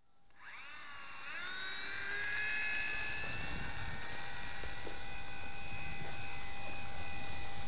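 Radio-controlled model airplane's electric motor and propeller spinning up with a rising whine, then running at a steady high whine that grows louder through the takeoff.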